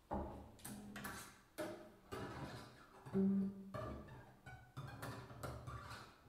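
Double bass played with a bow: a run of separate notes with sharp starts, the loudest a short low note about three seconds in.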